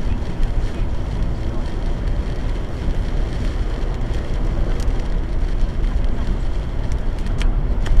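Torrential rain hitting a car's roof and windshield, heard from inside the cabin over steady tyre and road noise on a soaked highway, with scattered sharper drop hits.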